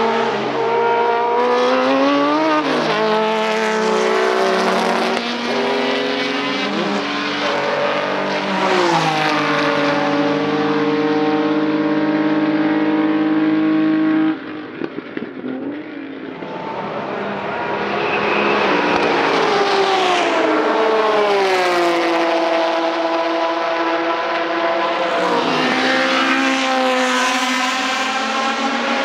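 Historic racing cars' engines at full throttle, the pitch climbing through the gears and holding a high, steady note before cutting off abruptly about halfway. Then another car's engine builds and passes by, its pitch falling away, with more engines revving near the end.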